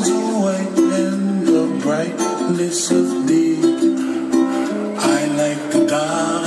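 Music with plucked string instruments playing.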